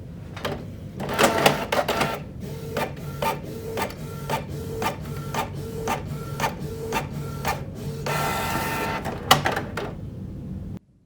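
Canon PIXMA inkjet printer's mechanism running after an ink cartridge change: a steady motor hum with regular clicks about three times a second. A whirring stretch comes near the end, then a sharp click, before the sound cuts off suddenly.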